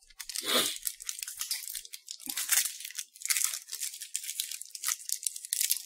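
Thin plastic wrapper of an individually wrapped wafer stick being torn open and crinkled by hand: a run of crackling rustles with a couple of louder rips.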